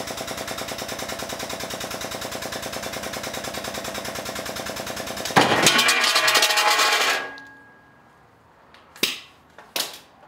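A workshop machine running with a rapid, even rattle. About five and a half seconds in, its low running sound stops while a loud hiss flares up and fades away over the next two seconds. Two sharp knocks follow near the end.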